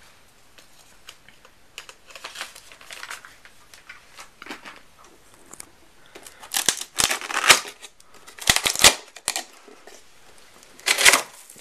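Cardboard box flaps and packing inside being pulled open and handled: a run of rustling, scraping and crinkling noises. They are sparse at first and loudest from about halfway through, with another loud burst near the end.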